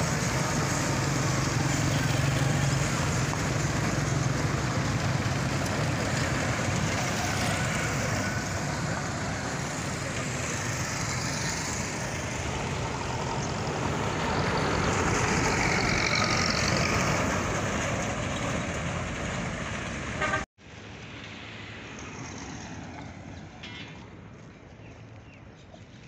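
Diesel tractor engines and road traffic running close by, a steady engine hum strongest in the first few seconds. About twenty seconds in the sound cuts abruptly to quieter, distant traffic.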